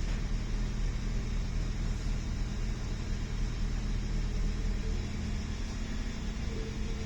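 Steady running rumble heard from inside a moving passenger train, wheels on the track, with a faint steady tone coming in near the end.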